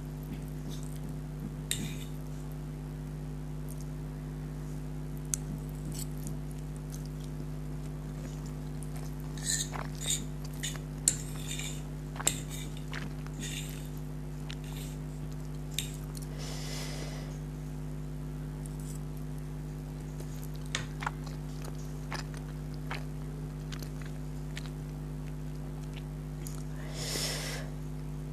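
Close-miked eating of hot and spicy instant noodles: scattered chewing and mouth sounds, with sharp clicks of cutlery against the plate bunched in the middle and two longer slurping noises, one just past the middle and one near the end. A steady low electrical hum runs underneath.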